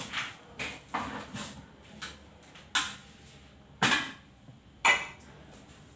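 Kitchen clatter: a string of separate knocks and clinks of dishes and utensils being handled, the loudest two near four and five seconds in, the last with a short metallic ring.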